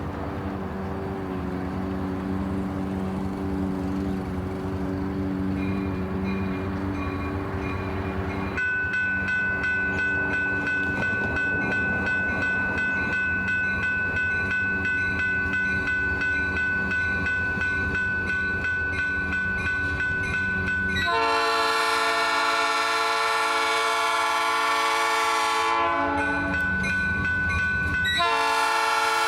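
Diesel freight locomotives running, with a steady high tone joining about a third of the way in. Then a multi-tone locomotive air horn sounds one long blast from about two-thirds of the way in, and a second blast starts near the end.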